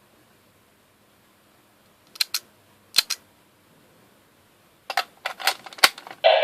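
Sharp plastic clicks of a Zyudenchi toy battery being handled and snapped into a Gabutyra de Carnival toy: two quick pairs, then a faster run of clicks a couple of seconds later. The toy's loud electronic voice and sound effect start right at the end.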